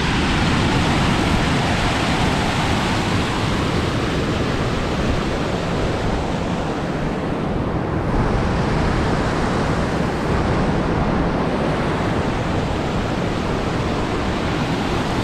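River water rushing fast and turbulent at a dam: a steady, loud wash of water noise.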